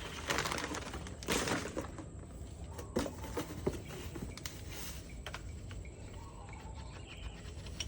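Packaging rustling and plastic pressure-washer parts clicking as they are handled and unpacked.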